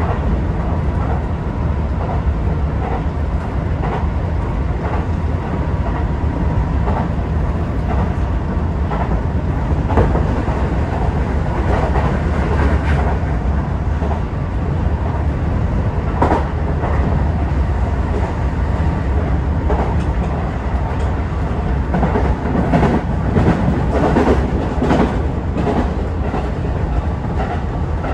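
Tokyo Metro 18000 series electric train running at speed, heard from inside the driver's cab: a steady rumble with wheels clicking over rail joints. The clicking grows busier and more clattering for several seconds near the end.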